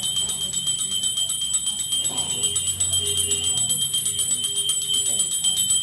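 Small puja bell rung rapidly and without a break, a bright metallic ringing pulsing many times a second.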